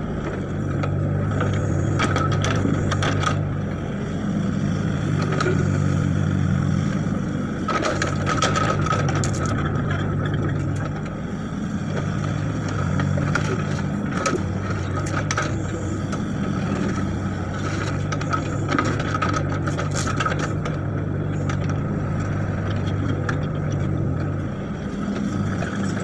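Hitachi mini excavator's diesel engine running steadily, its note swelling and easing every few seconds as the hydraulics take load. The bucket scrapes and clatters through soil and stones now and then.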